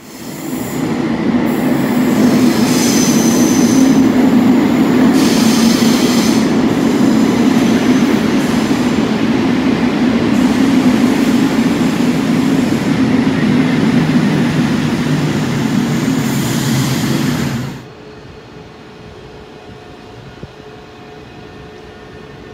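An SNCB electric multiple unit rumbles along an underground platform, loud and steady, with wheel squeal rising over it several times. Near the end the sound cuts off suddenly to a quieter steady hum.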